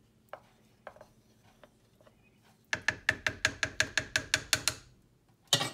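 Wooden spoon knocking against the slow cooker's stoneware crock while stirring sauce: a few faint taps, then a quick, even run of sharp clicks, about eight a second, for about two seconds, and one louder knock near the end.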